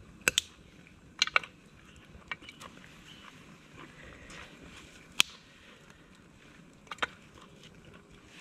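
Small dry twigs snapped by hand, a handful of sharp cracks, several in quick pairs, broken up as fuel for a Kelly kettle's fire.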